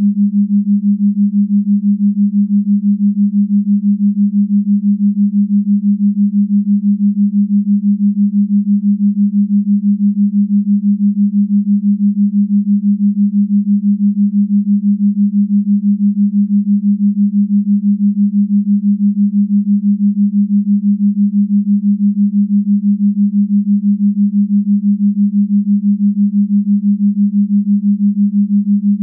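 A steady low electronic drone, close to a pure sine tone, pulsing evenly in loudness several times a second.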